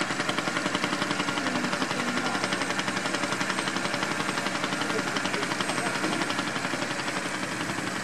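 Claas tractor's diesel engine running under load as it pulls a reversible plough through the soil, with a fast, even pulsing throughout.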